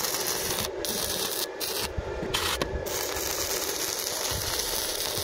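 Stick (MMA) welding arc from a 2.5 mm rutile electrode crackling and hissing steadily on steel tube, with a few brief breaks.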